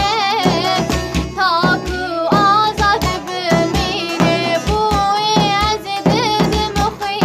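A girl singing a Kurdish song in a wavering, ornamented voice over a regular drum beat and instrumental backing.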